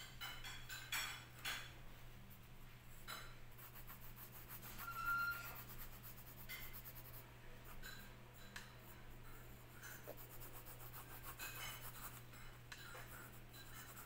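Graphite pencil scratching across paper in quick, irregular shading strokes, over a steady low hum.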